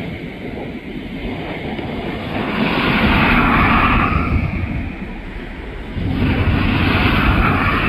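Road traffic: two vehicles passing one after another, each a rushing rumble that swells and fades.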